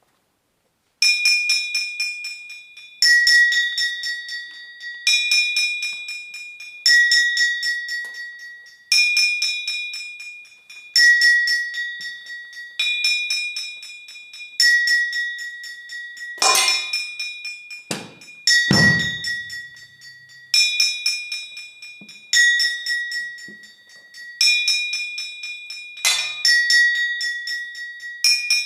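Percussion on ringing metal objects: fast repeated strikes alternating between two bell-like metal pitches, switching about every two seconds, starting about a second in. A few heavier, deeper thuds cut in around the middle and again near the end.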